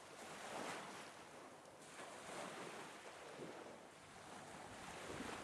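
Small waves lapping and washing on a shallow sandy shore, faint, swelling and easing every couple of seconds, with some wind on the microphone.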